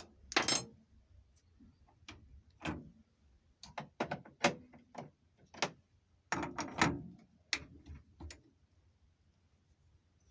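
Metal tools and parts handled on a workbench: a series of irregular clicks and clanks, with a busier cluster of them in the middle.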